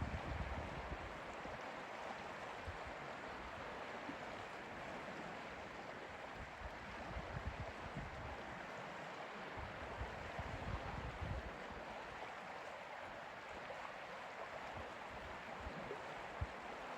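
Lake water lapping and trickling at the shore in a steady, gentle wash. A few soft low buffets of wind on the microphone come and go, most of them around the middle.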